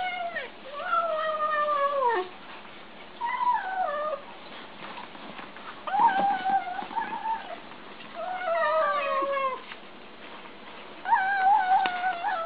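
Domestic cat meowing: five long, drawn-out meows, most falling in pitch, a second or two apart.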